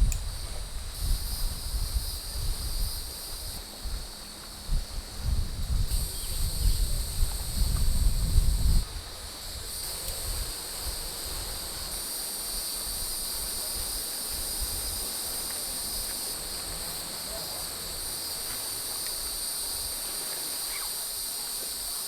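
A steady chorus of insects buzzing in high, even tones, with layers coming in and dropping out. Wind rumbles on the microphone for the first nine seconds or so, then stops.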